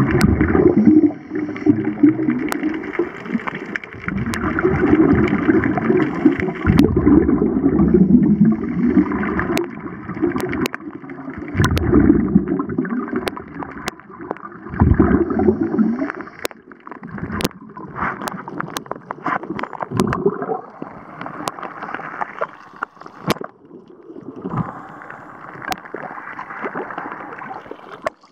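Scuba divers' exhaled air bubbling out of their regulators, heard underwater: bursts of low gurgling every few seconds, with scattered sharp clicks in the second half.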